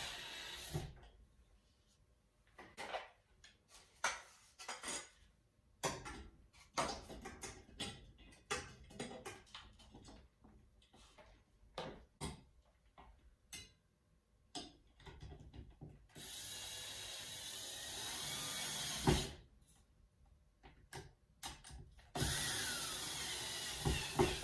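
Cordless drill driving the screws that fix fan blades to a ceiling fan's motor housing: three short runs of the motor, one just at the start, one in the middle ending in a sharp knock, and one near the end whose pitch falls. Between the runs come scattered clicks and knocks of the drill and screws being handled against the metal blade brackets.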